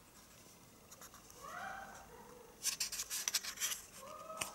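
Cardboard and paper packaging being handled and rubbed, a burst of rustling and scratching strokes past the middle.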